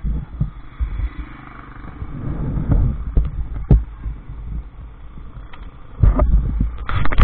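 Wind rumbling on an action camera's microphone, with knocks and bumps as the camera is jostled or handled: a sharp knock a few seconds in, then a louder run of thumps near the end.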